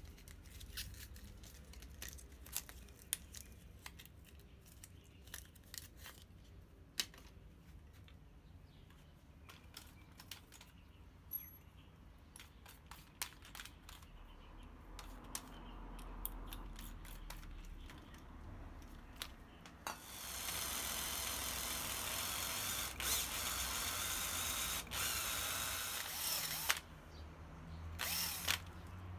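A drill press boring a hole through a hand-forged steel scissor blade clamped to a wooden block: scattered clicks and taps of handling first, then the motor comes up and the bit cuts steadily for about six seconds past the middle, stopping suddenly, with one more short burst of drilling near the end.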